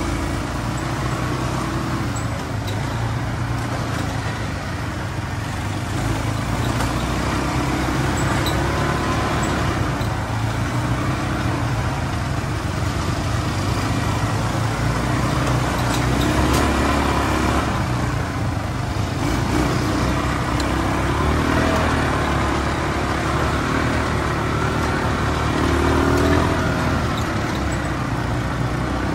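Quad bike (ATV) engines running steadily on the move along a dirt track, with rolling tyre and road noise.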